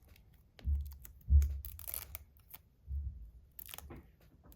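Close-up handling noise of tape being cut and pressed onto a small metal slider fidget: a few dull thumps and short, crisp scratchy rustles and clicks.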